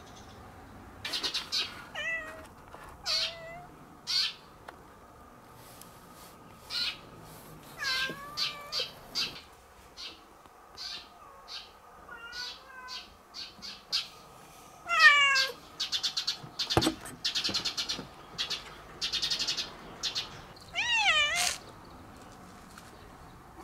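Domestic cat meowing over and over: a string of short calls, some rising and falling in pitch. A single knock comes about two-thirds of the way through.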